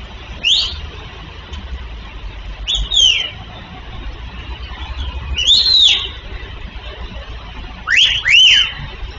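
Short whistled calls that rise and fall in pitch, about six of them, several in quick pairs, over a low steady rumble of street traffic.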